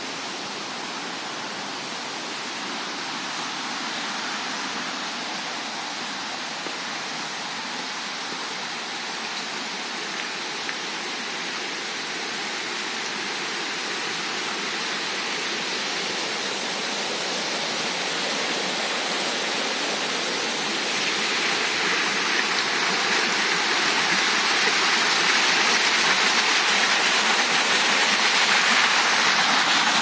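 Rushing river water, a steady even noise that grows louder through the second half.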